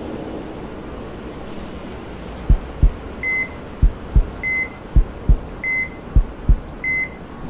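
Heartbeat sound effect, a double low thump about every second and a quarter, with a heart monitor giving a short high beep in time after each beat. Both start about two and a half seconds in, after a faint hiss.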